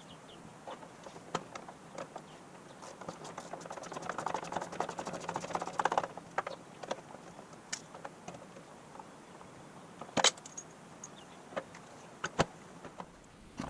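Ratchet wrench clicking rapidly as it backs out the 10 mm bolts holding a headlight, in a run of quick clicks, with scattered tool clicks and a sharp metallic knock about ten seconds in.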